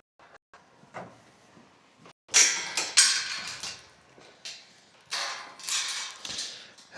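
An animal bowl being cleaned out and emptied, in two noisy bursts of about a second and a half each, after a few light knocks.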